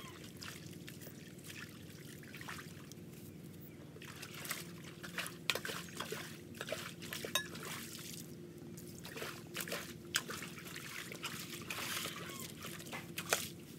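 Muddy water trickling and flowing through a shallow concrete drainage ditch at a culvert mouth. From about four seconds in come irregular splashes and sloshing as a long-handled tool works in the water and rubber boots wade through it.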